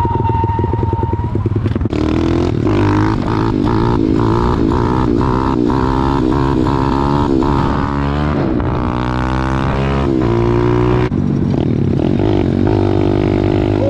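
Pit bike engine running and being revved, its pitch rising and falling again and again over a steady low drone.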